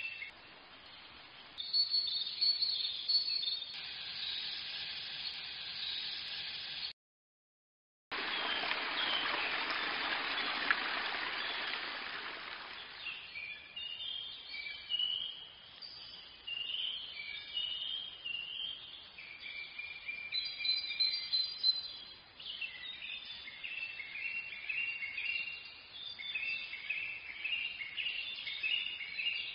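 Small birds chirping and calling, with a stretch of steady rushing noise about eight seconds in that fades away over several seconds. The sound drops out completely for about a second just before the rushing starts.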